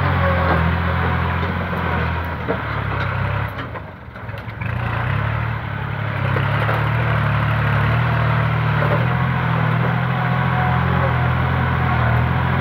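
Diesel engine of a Kubota L-series compact tractor running steadily as it pushes and grades soil with its front blade, a low drone that dips briefly about four seconds in.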